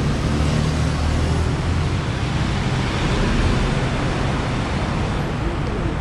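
Steady city street traffic: cars and a city bus passing close by, with a low engine drone that is strongest in the first couple of seconds.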